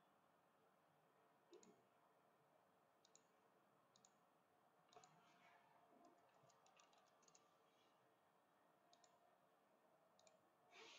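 Faint, irregular clicks of a computer mouse and keyboard, with a quick run of key taps about six seconds in.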